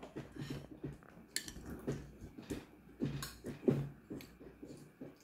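Metal chopsticks clicking and scraping against a glass food container while picking up kimchi: a few light, separate clicks.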